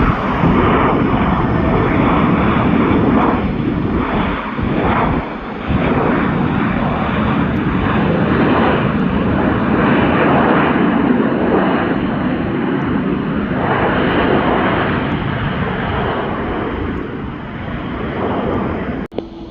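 Jet airliner's engines, loud and wavering, as the plane passes close to the airport; the sound stops suddenly about a second before the end.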